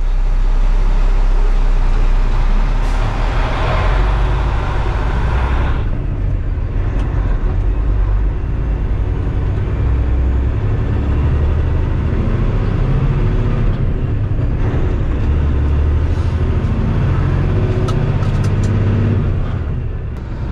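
Heavily loaded semi-truck's diesel engine pulling away and accelerating, heard from inside the cab, its low drone shifting every few seconds as it works up through the gears. A broad hissing rush rises over it from about three to six seconds in.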